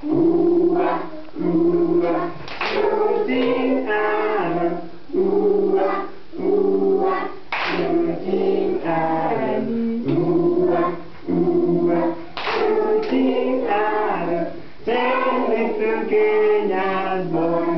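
A class of schoolchildren singing a song together in short held phrases, with a few sharp hand claps among them.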